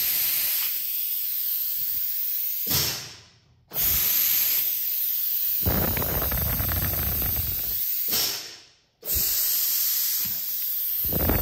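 Compressed-air vacuum ejector of a suction-cup gripper hissing as it holds plastic pouches, the air cut off to release each one. Three long hisses that each start suddenly and fade out, with short silent breaks about three and eight and a half seconds in.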